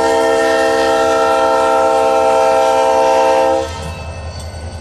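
Diesel locomotive's multi-chime air horn sounding one long, loud chord at a road grade crossing, cutting off about three and a half seconds in. The locomotive's diesel engine rumbles low underneath.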